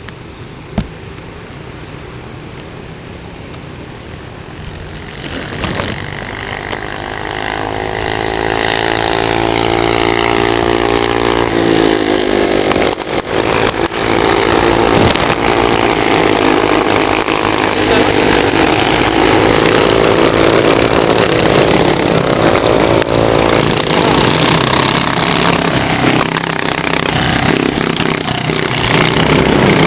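Kart engine winding up from about five seconds in, its pitch climbing for several seconds, then running loud at high revs with a steady rush of noise over it, easing off briefly twice.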